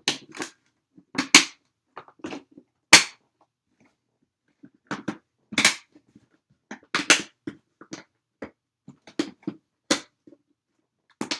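Hard plastic rifle case being shut: a string of sharp plastic clicks and knocks as the lid is pressed down and its latches are snapped closed, the back latch giving some trouble before it catches.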